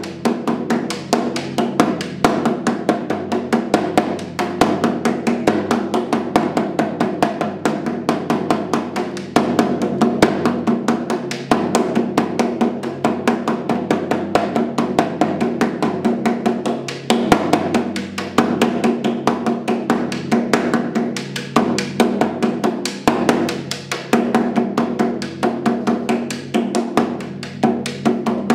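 Nepalese denguru, a double-headed shaman's frame drum with a phurba handle, beaten with a stick in a fast, steady, unbroken rhythm of several strokes a second, its skins ringing between strokes. This is shamanic trance drumming, the repeated rhythm meant to carry the player into an altered state.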